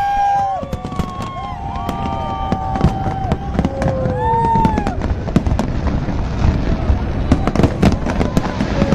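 Aerial fireworks exploding: a continuous run of booms and sharp crackles, growing denser in the second half, with crowd voices shouting and cheering over them in the first half.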